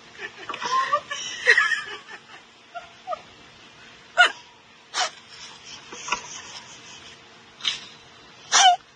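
A sleeping cat snoring: short, sharp snores at uneven intervals, with a busier run of small breathing noises in the first two seconds.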